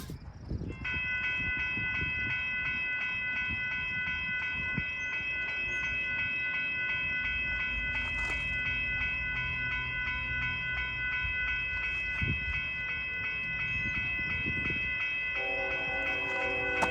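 Freight train led by an ex-Southern Pacific EMD SD70M diesel locomotive: a steady low rumble under a steady high-pitched ringing tone. The locomotive horn chord starts sounding near the end.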